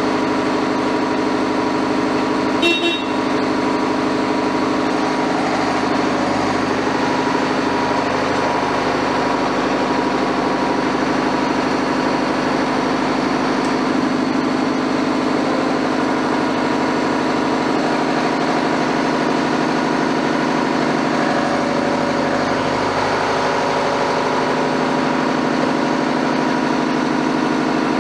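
Diesel engine of a Liebherr 924 wheeled excavator running steadily at idle. A short horn-like toot sounds about three seconds in.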